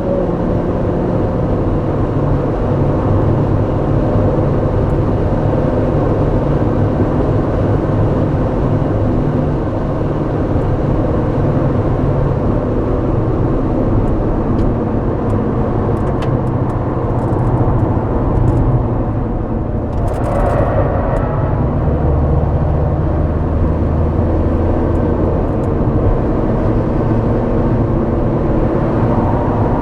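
Honda Civic Type R EP3's four-cylinder engine running hard on track, heard through the exhaust, its note shifting with throttle. There is a brief rush of noise about twenty seconds in.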